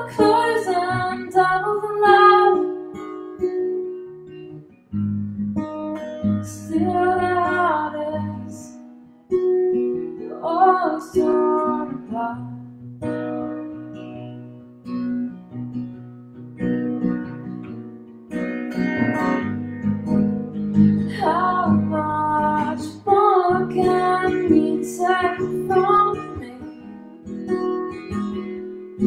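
Acoustic guitar strummed under a woman singing, her vocal phrases coming and going with short instrumental gaps between them.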